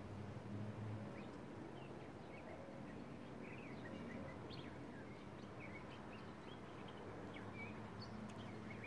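Faint background ambience: scattered short, high chirps of small birds over a low steady hum.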